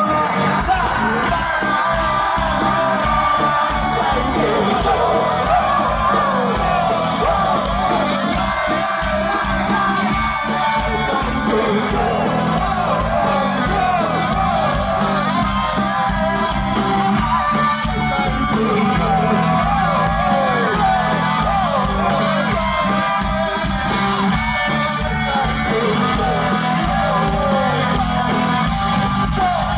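A Bangla rock band playing live over a steady drum beat, heard from within the crowd, with many audience voices shouting, whooping and singing along.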